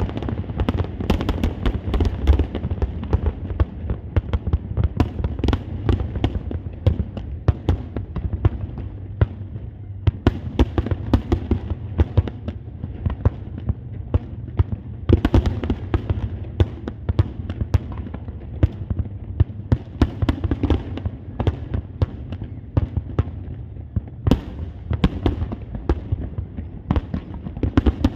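Fireworks going off in a dense, continuous barrage: many sharp bangs and crackles close together over a deep rumble of booms.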